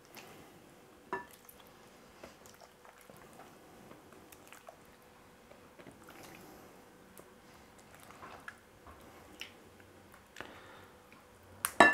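Pieces of raw, egg-coated pork rib dropped one by one into a glass bowl of cornflour, landing with soft, scattered thuds and small clicks, and a sharper knock near the end.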